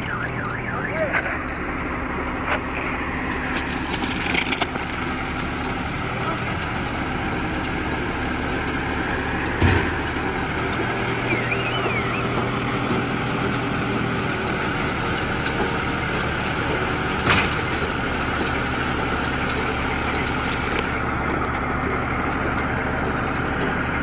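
Round baler at work behind a tractor: a steady engine drone mixed with the clatter of the baling machinery, with two sharp knocks, one about ten seconds in and another about seventeen seconds in.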